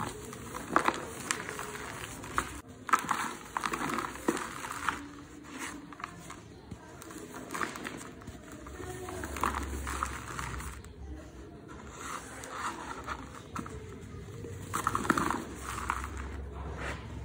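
Dry cement chunks being crushed and crumbled by hand: irregular gritty crunches and crackles. Loose powder sifts and pours through the fingers near the end.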